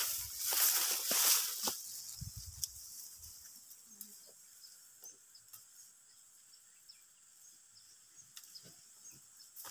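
Dry hill-rice stalks and leaves rustling and swishing as someone pushes through them on foot, loudest in the first two seconds, then dying down to faint scattered crackles.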